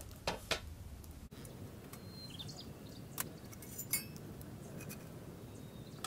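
Metal camping gear handled on a small camp table: a few sharp clinks and knocks, two close together at the start and two more around three and four seconds in, as a metal tray and an alcohol stove are set down.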